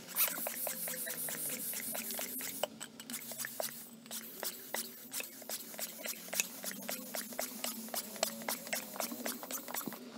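Electric air pump running, inflating a vinyl inflatable toy through its valve, with a steady low hum and a fast ticking of about four clicks a second.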